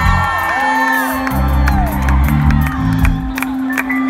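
Live rock band playing, heard from the audience: electric bass and guitars with a long held guitar note, and crowd members whooping over the music.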